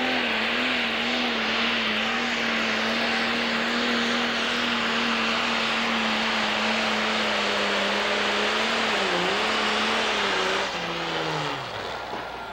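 Pro stock pulling tractor's turbocharged diesel engine running flat out under load while dragging the weight-transfer sled, a steady high-pitched engine note with a loud hissing edge. About ten and a half seconds in, it drops and winds down in pitch as the throttle comes off at the end of a full pull.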